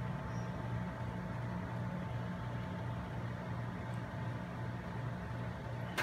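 Outdoor condenser unit of a Kolin split air conditioner running: a steady low compressor-and-fan hum with a regular throb, about two pulses a second.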